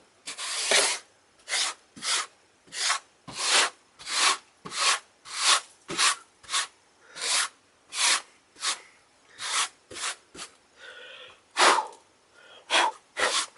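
A run of short swishes, about one and a half a second, while wood shavings are cleaned up after a whittling test.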